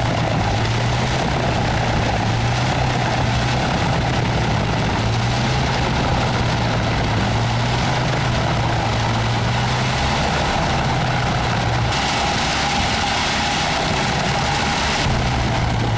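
Heavy machine engine running steadily with a low hum. For a few seconds in the second half the hum drops back and a louder, hissing grinding noise takes over, then the hum returns.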